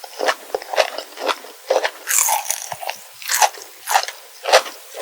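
Close-miked crunching and chewing of kohakutou, agar-jelly candy whose crisp sugar crust crackles between the teeth, in irregular bites about two a second.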